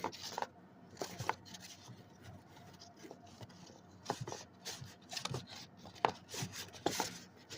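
Paper and cardboard being handled: irregular taps, scrapes and rustles, with a few sharper clicks about a second in, around four seconds in, and near six and seven seconds.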